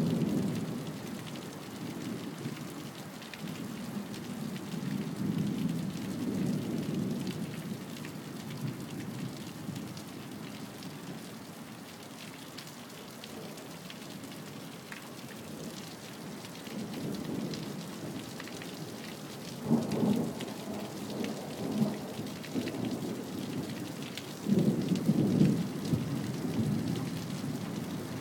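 Steady rain falling during a thunderstorm, with thunder rumbling in repeated low waves. A sharper clap comes about two-thirds of the way through, and another loud rumble starts near the end.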